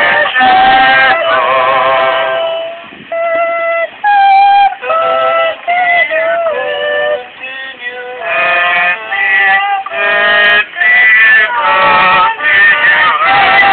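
Music: a high, wavering, singing-like melody in short phrases, with gliding notes and brief breaks between phrases.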